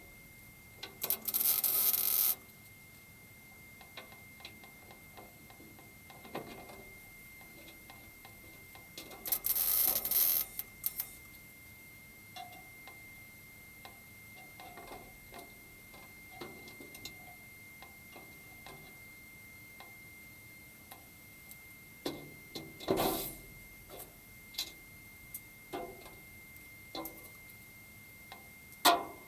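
Two short bursts of welding crackle, each about a second and a half, as tack welds go onto a steel floor panel, with scattered clicks and knocks between them and a faint steady high tone underneath.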